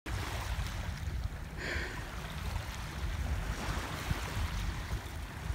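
Wind buffeting the microphone in a steady low rumble, over small waves washing onto a pebbly shore, with a brief hiss about a second and a half in.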